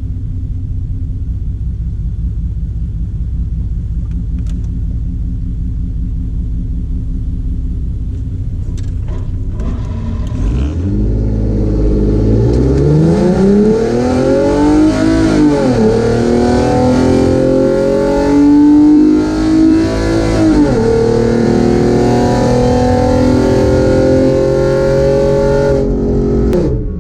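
Ford 3.7 L Cyclone V6 Mustang with long-tube headers rumbling at low revs, then launching hard about ten seconds in on a drag pass. The revs climb steeply and drop twice at the gear changes before the sound cuts off abruptly near the end.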